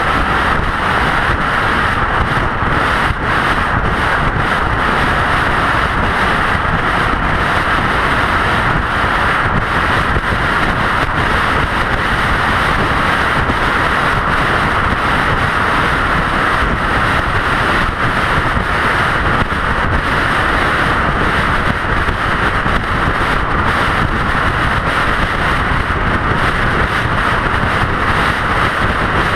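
Steady road and wind noise of a car driving at highway speed, an even rushing hiss with no change throughout.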